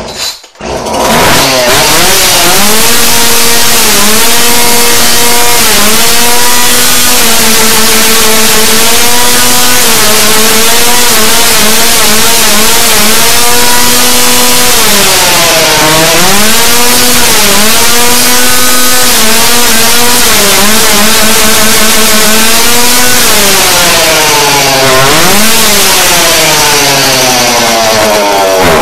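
Two-stroke chainsaw starting up and running at high revs, the throttle held steady with a couple of brief dips, then revved up and down repeatedly near the end. The owner thinks its carburettor probably needs tuning.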